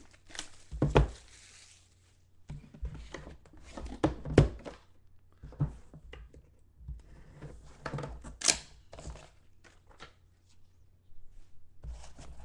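Plastic shrink wrap being torn and crinkled off a National Treasures football card box, followed by a string of knocks and taps as the box is handled on a tabletop and its lid opened.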